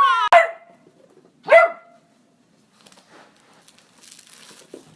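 A dog singing along in a pitched howl that slides down and ends just after the start, then one short howling yelp that rises and drops about a second and a half in.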